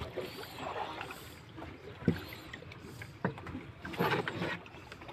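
Large fish being loaded into a plastic tub: a few separate knocks and thumps about two, three and four seconds in, against the fish, tub and boat.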